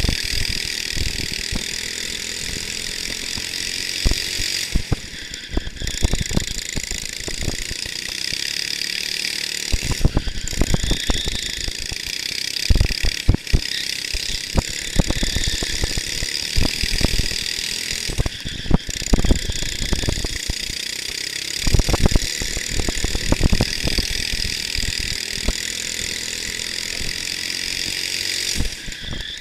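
Go-kart engine heard from on board, running hard at speed. Its note drops away briefly four times, with frequent uneven low thumps throughout.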